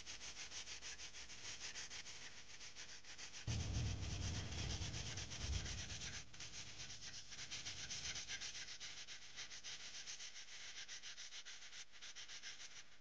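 Hand sanding the body filler on a scooter's front mudguard, a quick back-and-forth scratchy rubbing of several strokes a second. A low rumble joins in from about three and a half to six seconds in.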